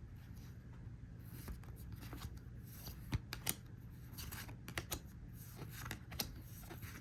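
Trading cards being handled and flipped through by hand: soft rustling and sliding, with several short, sharp card snaps from about three seconds in, over a faint steady low hum.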